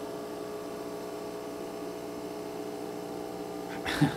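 Fog machine running while it puts out fog, its small fluid pump giving a steady electric buzzing hum. A short loud sound about four seconds in.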